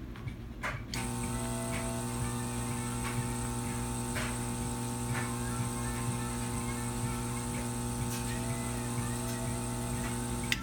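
Electric air pump switching on about a second in and running with a steady hum for about ten seconds before cutting off near the end: a simulated 10-second draw through a vape showerhead.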